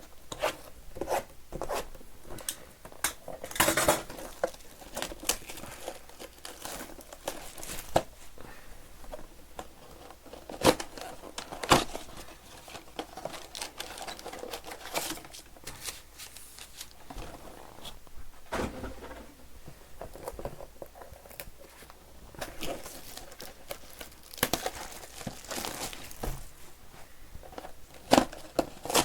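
Trading card boxes being opened by hand: plastic wrap torn and crinkled, cardboard boxes ripped open and the card packs pulled out, giving an irregular run of tearing, crackling and light knocks with a few longer rustles.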